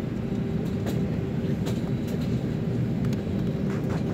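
Airliner cabin noise as the plane rolls on the ground: a steady low engine rumble with a constant hum, and scattered light clicks and rattles from the cabin.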